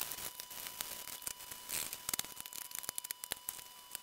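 Cloth rubbing polish over the wood-finish case of a cassette deck: a soft scuffing wipe with many small clicks. It is heaviest a little before two seconds in, over a faint steady tone.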